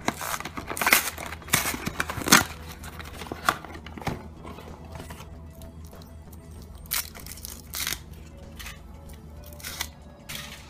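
Cardboard Kinder Surprise box being opened, then the egg's foil wrapper crinkling and tearing as it is peeled off the chocolate, in a string of sharp crackles that are loudest in the first few seconds. Faint music plays underneath.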